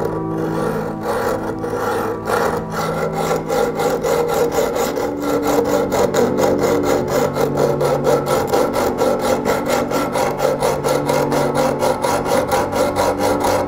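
Hacksaw cutting into the metal case of a small alarm clock held in a bench vise, in back-and-forth strokes. The strokes are uneven for the first few seconds, then settle into a quick, regular rhythm. Soft background music with held notes plays underneath.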